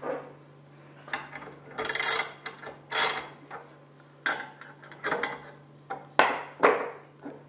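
A run of short scrapes and knocks as a thin 5052 aluminium strip and a wood shim are pushed and tapped into position under a bolted steel bending-brake bar, about ten separate contacts, some sharp.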